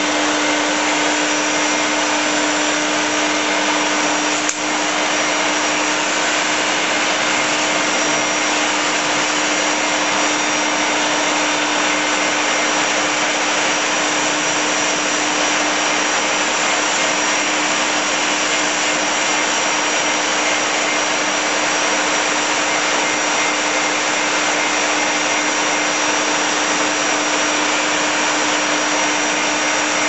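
Household vacuum cleaner running steadily while a Labrador is hoovered: a constant hum under an even hiss, with one brief drop in loudness about four and a half seconds in.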